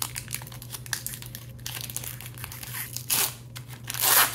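Foil Pokémon booster pack wrapper crinkling in the hands as it is torn open and the cards are pulled out. There are two louder bursts of crinkling and ripping, about three and four seconds in.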